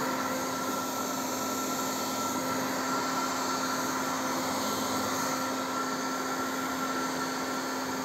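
Panasonic EH-ND11 hair dryer running on its high setting, running strongly: a steady rush of air with a steady motor hum under it.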